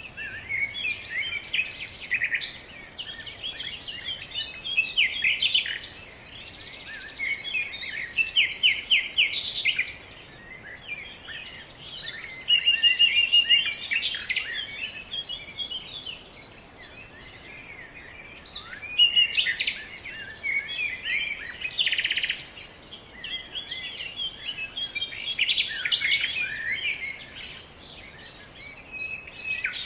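Several birds chirping and singing, short calls and quick trills overlapping in bursts every few seconds.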